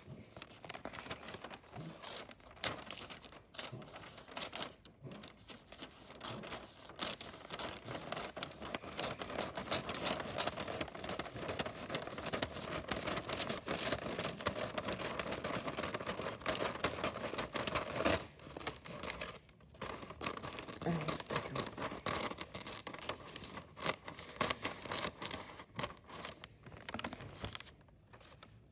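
Christmas wrapping paper crinkling and rustling as it is handled, a dense run of crackles with two short pauses about two-thirds of the way through.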